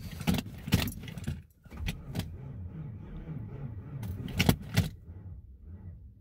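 Chevy truck's starter cranking the engine for a cold start at minus 30 on a weakly trickle-charged battery, without it catching, while the keys on the key ring jangle and click against the steering column.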